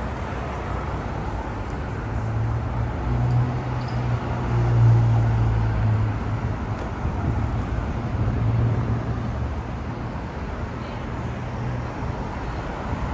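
City-street traffic: cars driving past on a multi-lane boulevard, a steady road noise with a low engine hum that swells as vehicles go by, loudest about five seconds in.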